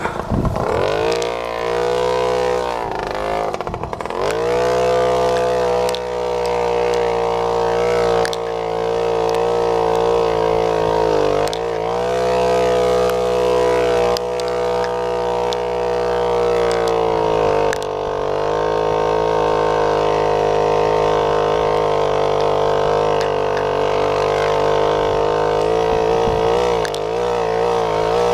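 Babetta moped's 50 cc single-cylinder two-stroke engine running hard at high revs, the revs dropping and picking up again a few times as the throttle is eased off and reopened.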